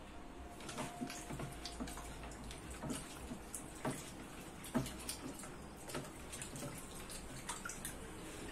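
Water splashing and dripping irregularly, with short sharper clicks, the sharpest a little before five seconds in.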